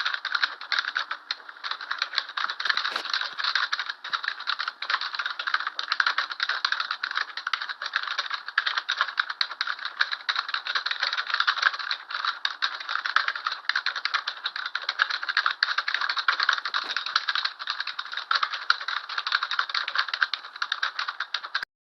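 Rapid, continuous mechanical clicking and rattling that stops abruptly near the end.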